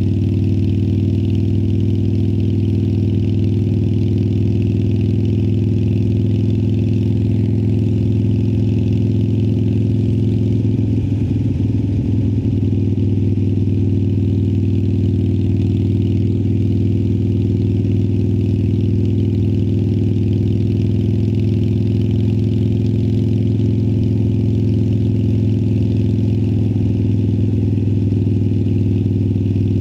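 2018 Harley-Davidson Sportster Iron 1200's air-cooled V-twin through Vance & Hines Twin Slash slip-on mufflers, running at a steady, unchanging pitch.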